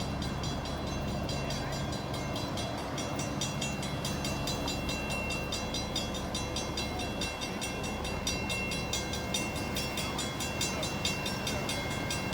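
Steady engine drone with a fast, even pulsing and several thin, steady high-pitched whines, unchanging throughout.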